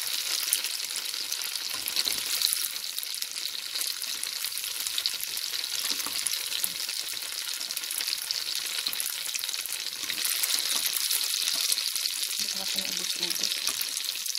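Tofu sticks frying in hot oil in a pan: a steady crackling sizzle with many small pops, the tofu fried light brown and done.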